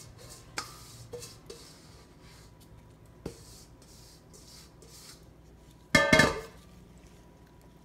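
Faint handling and rubbing with a couple of light clicks, then about six seconds in a stainless steel mixing bowl is set down on the counter with a loud clang that rings briefly.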